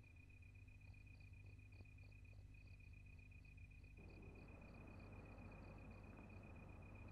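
Faint crickets chirping, a steady high trill with softer regular chirps above it, over a low mains-like hum; a faint hiss rises about four seconds in.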